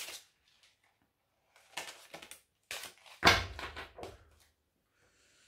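Short bursts of handling noise, with one sharp thump a little over three seconds in.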